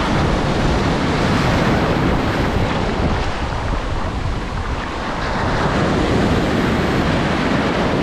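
Atlantic surf washing through the shallows right around the microphone: broken waves and foam rushing in, with wind buffeting the microphone. The rush eases about three seconds in and builds again a couple of seconds later.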